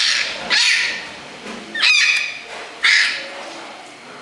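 A person imitating a velociraptor with his voice: four short, high-pitched screeches, about a second apart.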